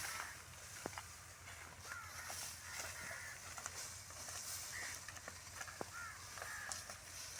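Faint bird calls, short chirps repeated every second or so, with a few scattered light clicks.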